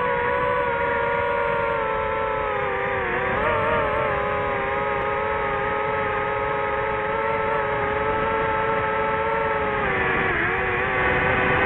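Motors and propellers of a DJI FPV quadcopter drone in flight, giving a steady high hum that wavers in pitch about three seconds in and dips briefly near the end.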